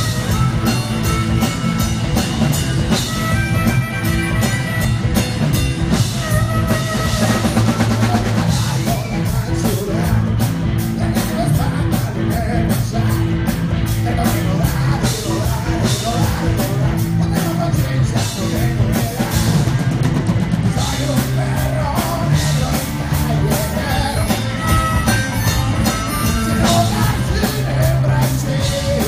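A live rock band playing a song: electric guitars over a drum kit with steady beats, and a singer on vocals.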